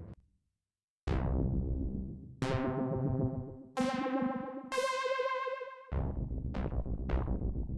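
Dave Smith Instruments Prophet 6 analogue polyphonic synthesizer playing a preset. After a second of silence, plucky notes with a bright attack that quickly darkens climb in pitch one after another. Near the end come quick repeated low notes, about two or three a second.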